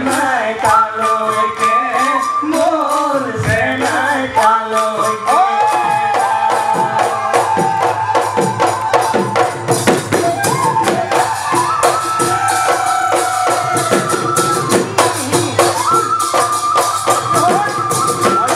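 Live Assamese Bihu folk music: dhol drums and other percussion beating a fast, dense rhythm under a high, held melody line that slides between notes.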